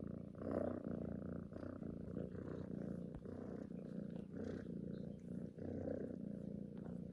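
Domestic cat purring, a low buzzy rumble that swells and breaks in even pulses a little under twice a second.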